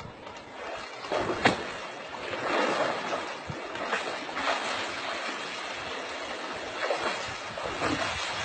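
A moose wading out of a shallow stream, water sloshing and splashing around its legs in uneven surges, with a sharp knock about a second and a half in.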